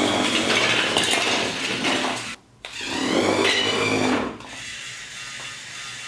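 Small electric motor of a toy building-block road roller whirring, with its plastic gears and rollers rattling as it drives. The sound cuts out briefly about two and a half seconds in, then runs again, quieter near the end.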